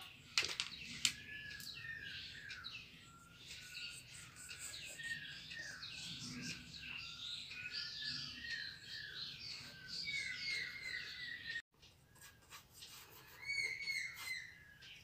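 Small birds chirping continuously, a dense run of short, quick falling chirps. Two sharp clicks stand out about half a second and a second in, and the sound drops out for an instant near the end.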